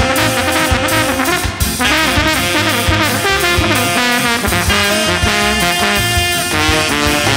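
Background jazz music with horns over a steady beat.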